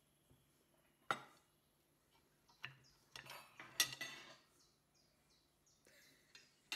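Metal serving utensils clinking and clattering against a glass dish and plates as food is served: a sharp clink about a second in, another near three seconds, a busier run of clatter around three to four seconds, and one more clink at the end.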